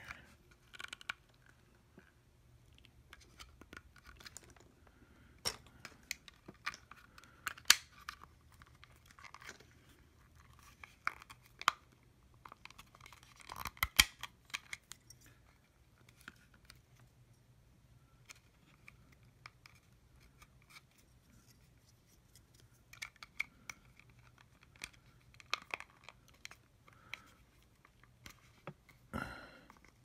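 Hands working the hard plastic battery cap of a cordless soldering iron with a wire threaded through it: scattered small clicks, scrapes and rustles, with a louder run of clicks about halfway through.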